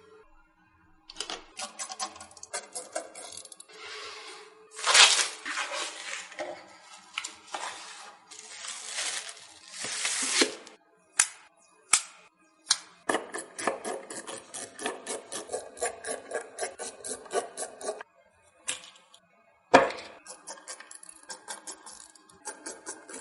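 Computer parts being handled and fitted by hand: a string of clicks, taps and rustles with short pauses, and a fast run of even clicks, about six a second, lasting some five seconds past the middle.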